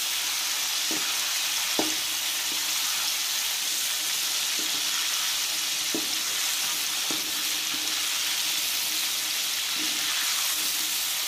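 Whole shell-on shrimp sizzling steadily in hot oil in a wok, with a few brief knocks and scrapes of a metal spatula against the pan as they are turned over one by one.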